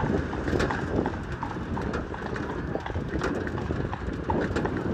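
Horse's hooves clip-clopping on the paved road as it pulls a cart, a string of short sharp strikes over a steady low rumble.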